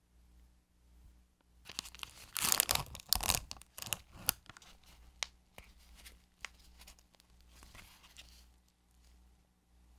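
Clear plastic blister pack being pried and peeled open: a loud burst of crackling and tearing plastic about two seconds in, then lighter crinkles and clicks as the lid and tray are handled.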